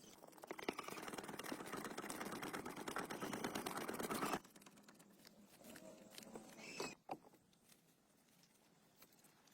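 A dense rasping noise, full of fine rapid clicks, that stops abruptly about four seconds in; a few fainter knocks follow.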